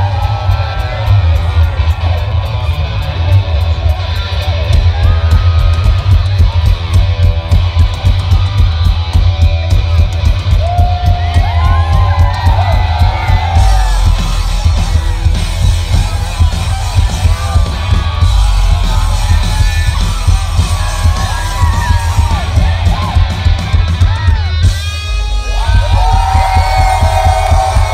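Live rock band playing loud: electric guitar and drums with a heavy low end and a steady beat, with voices yelling over the music.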